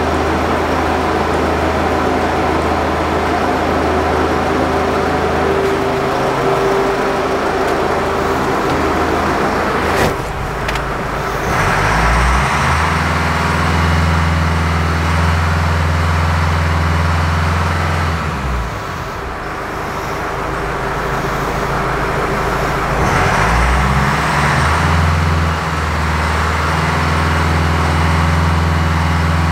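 2010 Subaru Forester's 2.0-litre turbo boxer diesel idling steadily, then revved up to about 2500 RPM and held for a DPF back-pressure test. It drops back to idle for a few seconds about two-thirds of the way in, then is revved and held again.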